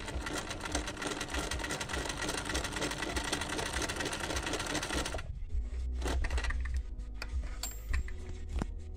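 Chaika 144A electric sewing machine stitching through silk at a fast, even rate, then stopping abruptly about five seconds in. A few separate light clicks follow.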